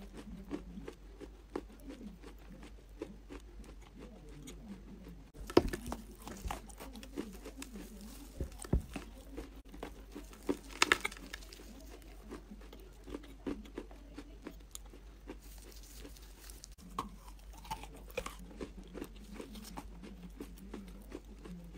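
Close-miked eating of a lump of reddish-brown clay: crunchy bites and chewing with many small crackles, the sharpest crunches about six seconds in and around eleven seconds in.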